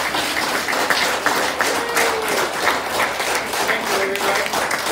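Audience of residents applauding, many hands clapping in a dense, uneven patter.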